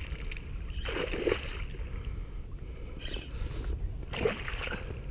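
Water splashing and sloshing in a few short bursts as a hooked fish struggles near the surface beside the boat, over a steady low rumble.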